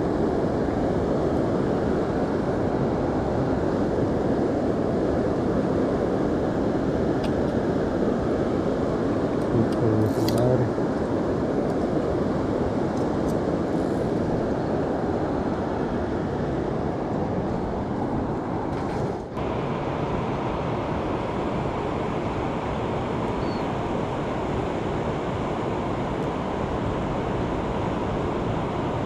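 Steady rushing of fast river water and surf over rocks, mixed with wind on the microphone, with a brief handling knock about ten seconds in.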